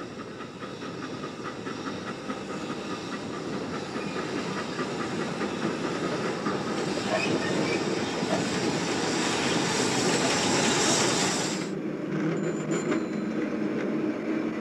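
Steam tram locomotive running along street track: steady chuffing and steam hiss with a regular beat and rail clatter, growing louder as it approaches. About twelve seconds in it changes abruptly to a quieter street-tram running sound.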